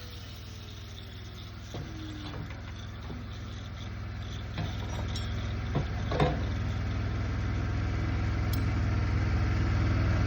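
An engine running steadily with a low hum, growing gradually louder, with a few short knocks or clanks over it.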